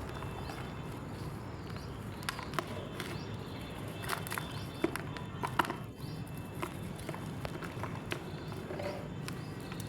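Soft chalk being crumbled and crushed, giving irregular sharp crackles and crunches, busiest in the middle stretch.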